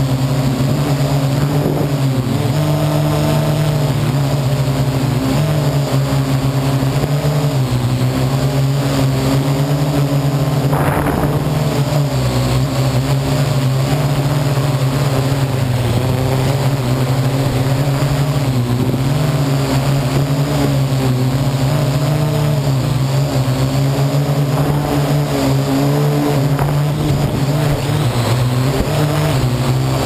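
Parrot AR.Drone quadcopter's electric motors and propellers running, heard up close from the camera mounted on the drone: a steady buzz whose pitch wavers up and down as the motors change speed.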